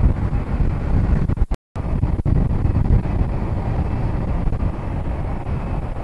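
Wind buffeting the microphone: a loud, gusty low rumble. The sound cuts out completely for a moment about one and a half seconds in.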